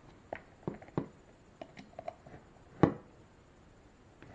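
Scattered small clicks and taps of a nut driver tightening a nut down onto a small machine screw on a headset, about half a dozen light ones with the loudest nearly three seconds in.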